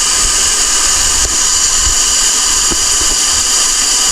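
Waterfall water rushing, a loud, steady roar of falling water.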